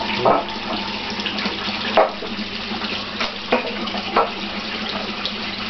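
Steady rush of running water in a large catfish pond, over a low steady hum. Five short splashes come at uneven intervals from big catfish feeding at the surface.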